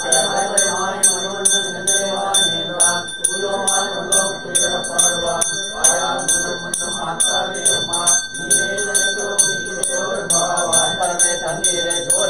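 A puja hand bell rung steadily, about four strokes a second, its ringing tone held throughout, over men's voices chanting.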